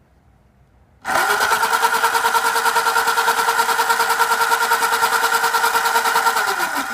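Replacement battery-powered electric motor in a scratch-built R2-D2 replica switching on about a second in and running with a steady whirring whine, then dropping in pitch as it winds down near the end: the new motor works.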